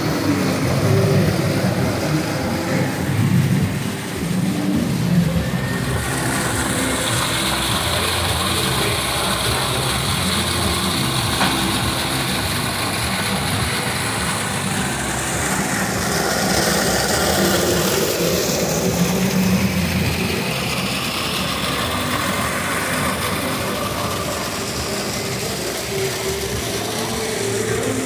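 Artificial indoor waterfall pouring into a rock pool: a steady rushing of water that turns brighter and hissier from about six seconds in.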